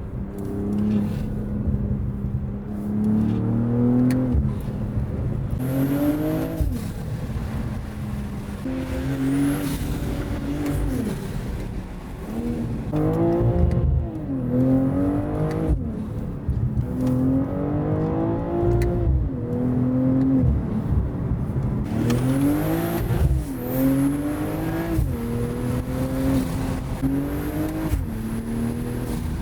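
BMW M240i's turbocharged B58 inline-six with a Valvetronic Designs valved exhaust on stock downpipes, heard from inside the cabin while driven. The engine note climbs in pitch through repeated pulls and drops sharply at each gear change, about eight times.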